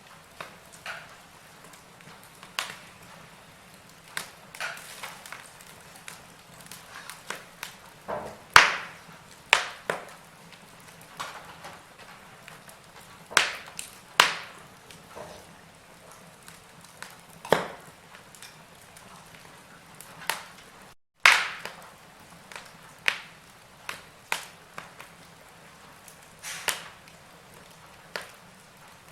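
Wood logs burning in a fireplace: irregular sharp crackles and pops, some much louder than others, over a faint hiss of the flames. The sound cuts out for a split second about two-thirds of the way through.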